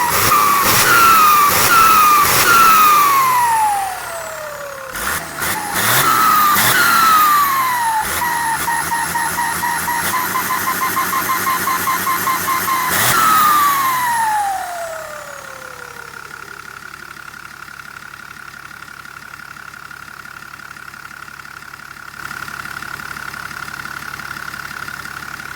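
Turbocharged engine with a Holset HX-series turbo revved in a series of short throttle blips. After each blip the turbo's whistle falls in pitch as it spools down. After about fifteen seconds it settles to idle, with a steady high turbo whine over the engine.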